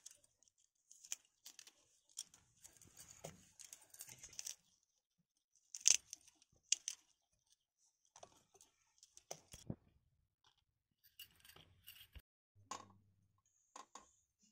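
Fruit being peeled and broken apart by hand: scattered crisp snaps, crackles and tearing of the skin and flesh, with a louder snap about six seconds in.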